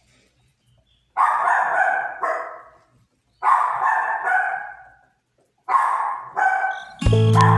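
A dog barking in three bouts about two seconds apart, each bout a pair of barks. Background music comes in near the end.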